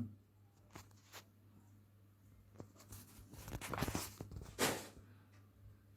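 Paper rustling and light clicks as a printed product catalogue is handled: two faint ticks about a second in, a longer bout of rustling in the middle and a sharper rustle near the end.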